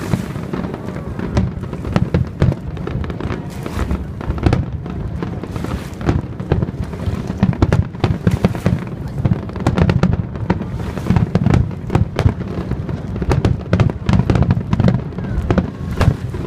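A dense barrage of aerial firework shells bursting, with sharp bangs and crackles coming several times a second without a break.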